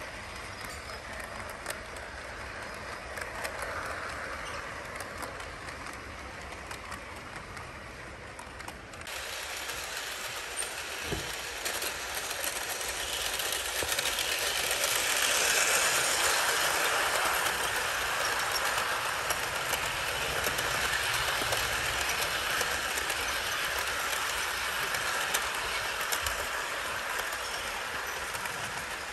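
HO scale model trains running on sectional track: a steady running noise of small electric motors and wheels on the rails, growing louder about halfway through as the trains pass close by.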